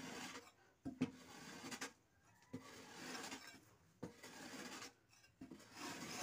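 A long-handled wooden tool scraping and sweeping across an earthen floor strewn with loose material, in repeated rasping strokes. A few sharp knocks come in the first half.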